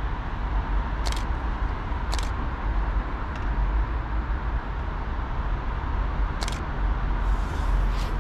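Steady outdoor background noise with a low rumble, broken by three short high-pitched ticks about a second, two seconds and six and a half seconds in.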